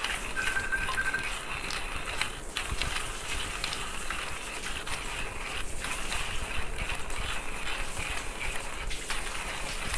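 Timemore Chestnut C2 hand coffee grinder being cranked, its steel burrs grinding coffee beans steadily with a dense crackle of small clicks. It is set to its finest grind, so the beans take a while to go through.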